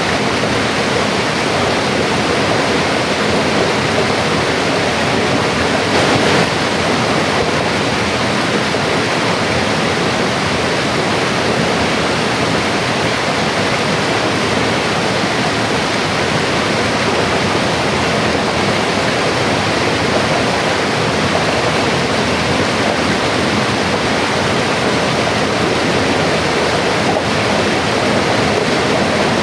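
Mountain river rushing steadily, an even wash of flowing water.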